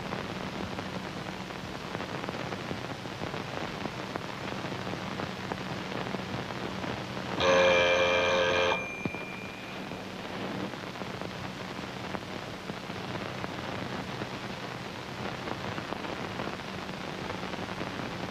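Steady hiss and low hum of an old soundtrack. About seven seconds in, an electric bell rings loudly for about a second and a half and stops abruptly, leaving a thin ring that dies away over the next second.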